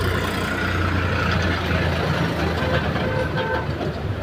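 Motor vehicle engine idling with a steady low hum; a few short faint tones come in between about two and three and a half seconds in.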